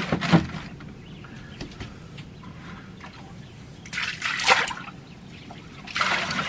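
Water sloshing and splashing out of a plastic bucket as it is tipped and emptied, in two short pours about four and six seconds in.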